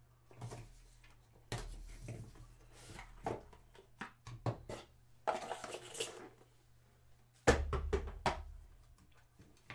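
A cardboard trading-card box being slit open and handled, with scraping, sliding and rustling of cardboard and cards. Near the end comes the loudest part: a quick cluster of sharp clicks with a thump as a card is set down on the table.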